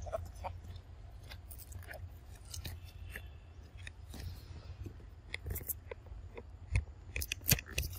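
Macaques chewing and biting into fruit: irregular crisp clicks and crunches, coming thicker near the end, over a steady low rumble.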